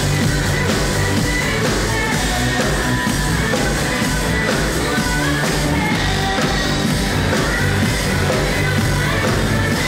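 Rock band playing at full volume: electric guitar and drum kit, with a sung vocal line over the top.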